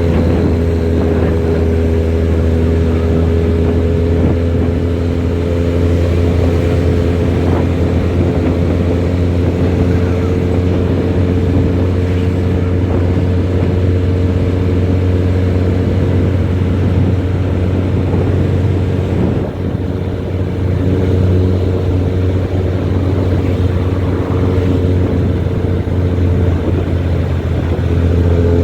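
Nissan-chassis bus's diesel engine and aftermarket exhaust running steadily under way: a loud, low, even hum with several held tones above it and a brief small dip in level about twenty seconds in.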